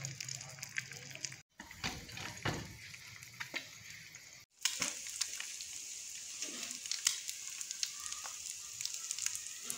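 Eggs frying in hot oil in a frying pan: a steady sizzle with scattered crackling pops. The sound breaks off briefly twice, about a second and a half and four and a half seconds in.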